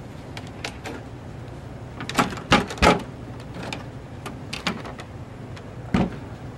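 Knocks and bumps of a wooden-cased Sony quadraphonic receiver with built-in turntable being turned around and shifted on a table. The loudest is a cluster of three thumps about two to three seconds in, with another sharp thump near the end.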